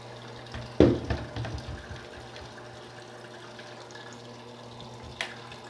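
A camera being handled as it is set in place: one sharp knock about a second in with a brief rattle after it, and a small click near the end, over a steady background hum.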